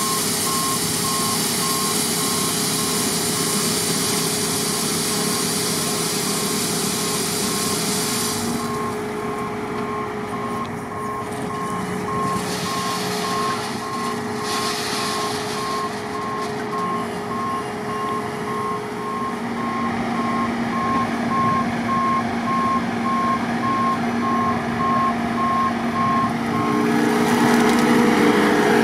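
New Holland CX 7.90 combine harvester reversing, its back-up alarm beeping evenly over the running diesel engine. A steady high hiss from the machine cuts out about eight seconds in. The beeping stops near the end as the engine note changes and rises.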